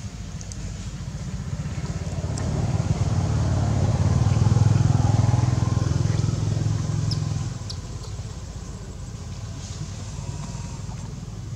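A motor vehicle engine passing by: a low engine hum builds from about two seconds in and falls away sharply about seven and a half seconds in.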